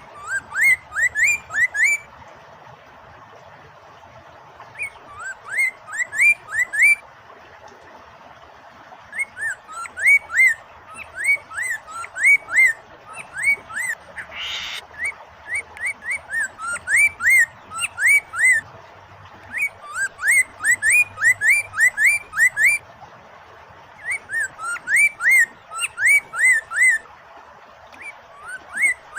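Poksay mandarin singing in phrases of rapid, sharply upswept whistled notes, each phrase about two seconds long and separated by short pauses, over a steady hiss of running water. A brief noisy rush sounds about halfway through.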